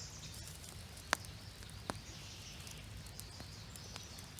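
Small stick fire catching in a fire pit, with sharp crackles about a second in and again just before two seconds in, over a faint steady hiss.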